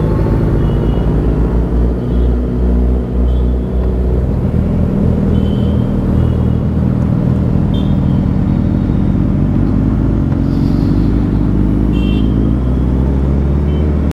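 Suzuki Hayabusa's inline-four engine running at low speed, ridden through city traffic. Several short horn toots from the surrounding traffic sound over it.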